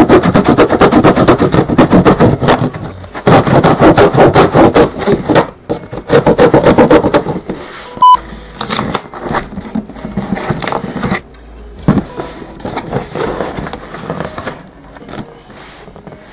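Kitchen knife sawing through packing tape and cardboard on a shipping box, a loud rapid scraping in three spells over the first seven or so seconds. A short beep about eight seconds in, then quieter scrapes and knocks of the box being handled.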